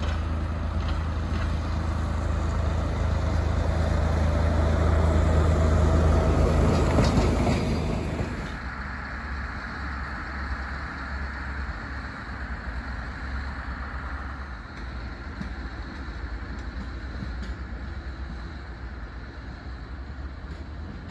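Dv12 diesel-hydraulic locomotive running, a steady low engine note growing louder as it approaches, until the sound changes abruptly about eight seconds in. After that comes the quieter, steady engine hum of a yellow rail track maintenance machine on the move.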